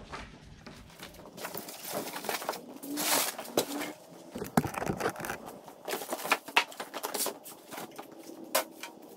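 Cardboard packaging rustling and scraping, with scattered knocks and clatters as a boxed folding metal saw stand is handled and lifted out of its box.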